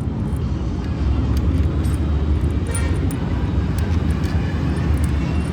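A steady low motor-vehicle engine rumble, with a few faint light clicks.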